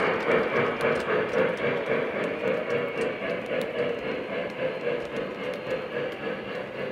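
O-scale model passenger cars rolling along three-rail track: a steady rumble with scattered clicks from the wheels on the rails, slowly fading as the train moves away.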